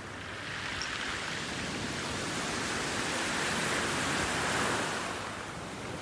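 Small waves of a calm sea washing up a pebble beach: a hiss of surf that builds from about half a second in, is loudest about three quarters of the way through, then eases off.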